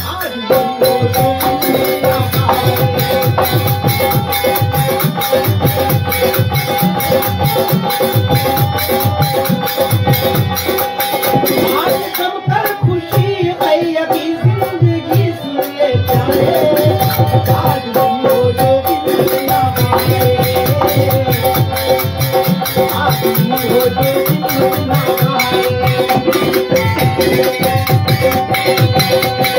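Instrumental interlude of a Fiji Indian qawwali: harmonium playing a held melody over fast dholak drumming and jingling hand percussion. The drumming drops back for a few seconds around the middle, then comes in again.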